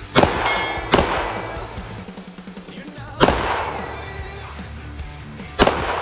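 Four shots from a Smith & Wesson M&P 9mm pistol, each with a ringing echo: two about three-quarters of a second apart near the start, one about three seconds in, and one near the end.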